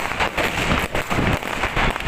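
New Year's Eve fireworks and firecrackers going off all around: a dense, continuous crackle of many overlapping bangs and pops, several a second.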